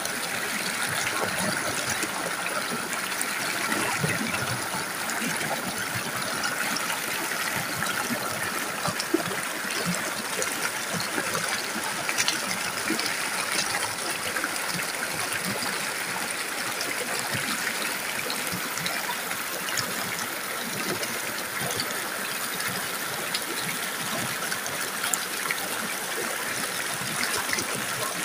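Shallow rocky stream running over boulders and small cascades, a steady rush of water with fine splashing.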